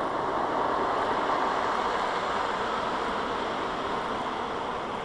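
Aquatus Prime combination car wash running its touchless programme: a steady rushing noise that starts to ease off near the end.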